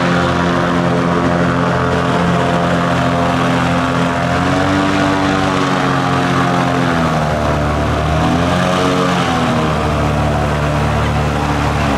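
Airboat's engine and big air propeller running loud, its pitch rising and falling twice partway through as the throttle changes.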